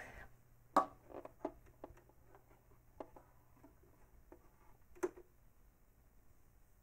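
Scattered light clicks and taps from hands handling a serger's parts and thread while the machine is not running, with a louder click about a second in and another about five seconds in.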